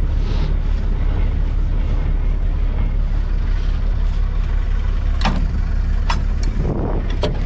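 Scania V8 truck engine idling with a steady low hum. Several sharp metal clanks come in the second half as the trailer's steel crank handle is handled.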